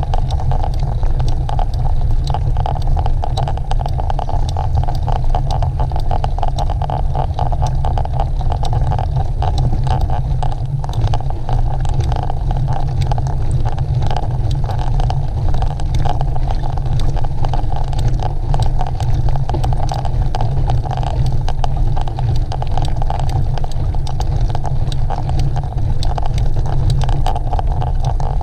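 Mountain bike ridden along a cross-country trail: steady rushing wind on the microphone over the rolling tyres, with a constant rattle and clicking from the bike over rough ground.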